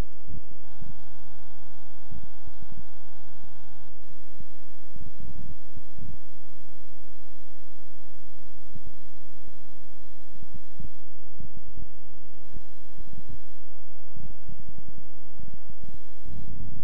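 Loud, steady electrical mains hum: a buzz with many evenly spaced overtones, broken by frequent short low pops and thumps.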